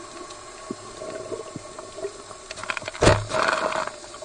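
Underwater recording: a steady hum with scattered clicks, then a louder rush of water noise with a low thump about three seconds in.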